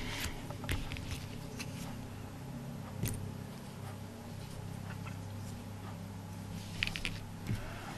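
Quiet handling of a ribbon scrap and a small metal ribbon clamp: a few light clicks and rustles, one about 3 seconds in and a couple near the end, over a steady low hum.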